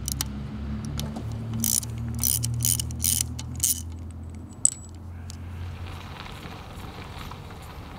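A socket wrench loosens and unscrews a spark plug from a Rotax 582's cylinder head, giving a run of quick metallic clicking bursts. A single metallic ping follows near the fifth second as the plug comes free. A low steady hum runs underneath and fades away soon after.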